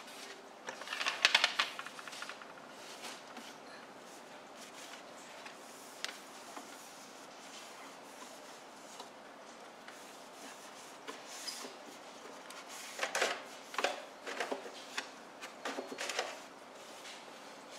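Bursts of light clicking and clattering, like hard objects being handled: one about a second in, then a longer run from about twelve to sixteen seconds in, with a single click near six seconds and quiet room tone between.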